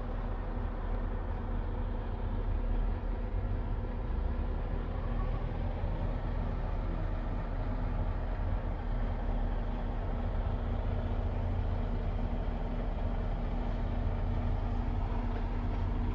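Scania R tractor unit's engine idling steadily, a low, even hum heard from inside the cab.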